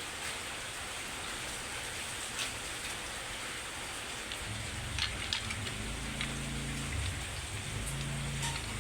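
Steady rain-like hiss with a few light clicks. About halfway through, a low, steady engine-like hum comes in and holds.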